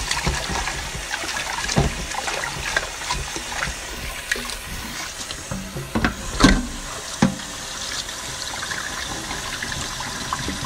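Water running and sloshing in a pot as a hand swishes and rinses small pieces of dried black fungus (wood ear mushroom). A few sharp knocks stand out, the loudest about six and a half seconds in.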